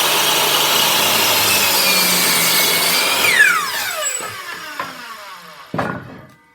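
Electric power saw running, then switched off a little over three seconds in; the motor winds down with a falling whine. A single knock comes near the end.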